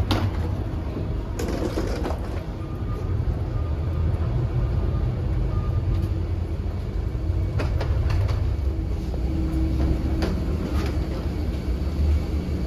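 Steady low rumble of a jet bridge beside a parked airliner, with a few scattered knocks and clicks.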